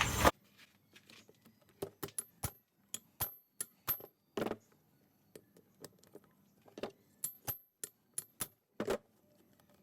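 Light metallic clinks and taps, about twenty scattered irregularly, some with a brief high ring: small metal tools and engine parts being handled during disassembly.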